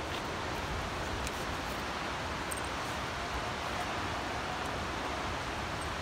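Steady, even rush of falling water from a waterfall and its stream, with a few faint taps.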